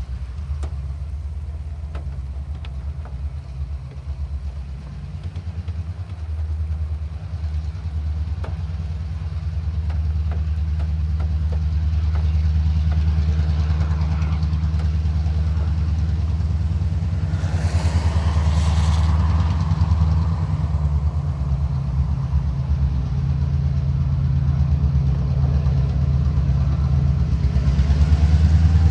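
Two TasRail diesel-electric locomotives, 2054 leading 2051, hauling a coal train: a deep, steady engine drone that grows louder as they approach. A brief hiss comes about two-thirds of the way in.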